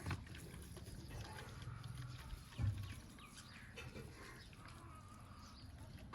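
Faint animal calls over a low rumble, with a dull thump about two and a half seconds in.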